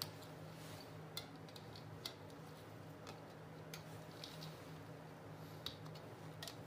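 Irregular light ticks and clicks of thread being wound and pulled taut around small nails on a string-art board, over a faint steady low hum.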